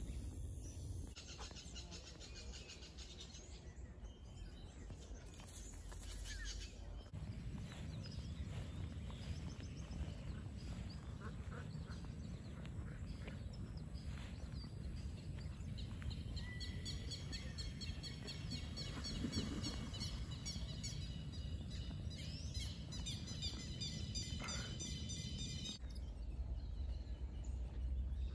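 Outdoor ambience: a steady low rumble with birds chirping. From about halfway a rapid, high, repeated chirping runs over it for several seconds, then stops abruptly near the end.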